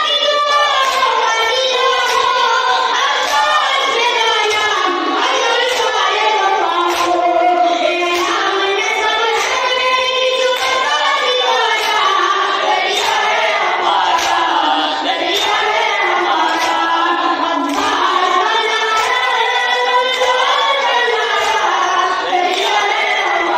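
A boy's high voice chanting an Urdu noha (Muharram lament) into a microphone, with a man's voice singing along. Even, rhythmic slaps of matam, hands beating on chests, keep time underneath.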